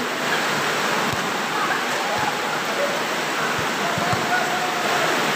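Steady rushing background noise of an outdoor volleyball court, with faint voices of players and spectators and a few soft low thumps.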